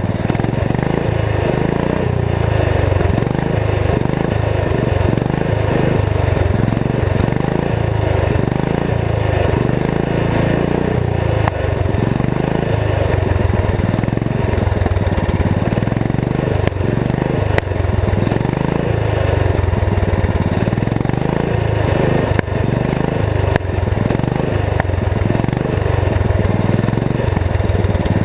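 Garden tractor's 14 hp single-cylinder Kohler engine, turbocharged with a K03S turbo, running steadily under way.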